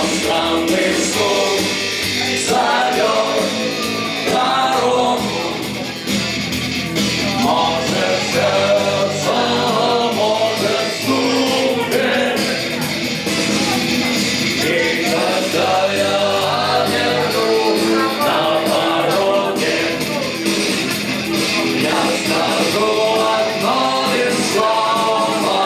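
Live rock band playing a song, with guitars and a melody line over the band.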